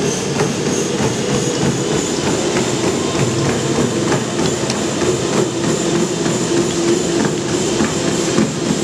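Someone running on a treadmill: a quick series of foot strikes on the moving belt over the steady noise of the belt and motor.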